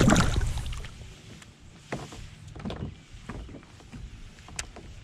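Water splashing beside a fishing kayak as a bass is let go, with a deep rumble of wind on the microphone in the first second. This is followed by a few scattered light knocks and drips.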